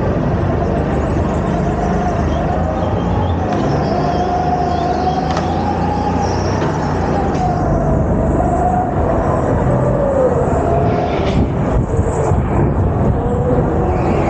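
Go-kart running at speed on an indoor track, its motor tone rising and falling as it speeds up and slows through the corners, over a heavy low rumble of the kart's vibration. A few short knocks sound along the way.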